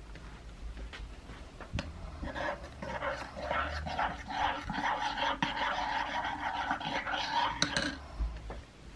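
Metal teaspoon stirring inside a ceramic mug: a quick run of scraping and clinking against the mug's walls, starting about two seconds in and stopping just before the end, with a sharp clink near the end as the spoon is tapped and left in the mug.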